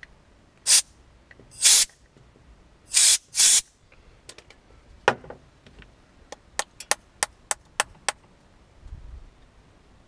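Four short blasts of hissing air from a can of compressed-air duster, used to clear the pins out of a padlock cylinder; the last two come close together. Then a run of light, sharp clicks, about eight in three seconds.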